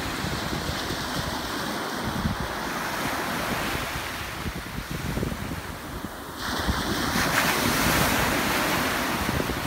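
Ocean surf washing ashore with wind buffeting the microphone; the surf swells louder about two-thirds of the way through.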